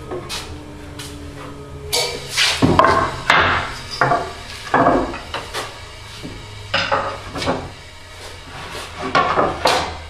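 Rough-sawn wooden boards being handled and laid on a table saw's metal top: a string of irregular wooden knocks and clunks, wood on wood and wood on the table, starting about two seconds in, over a steady low hum.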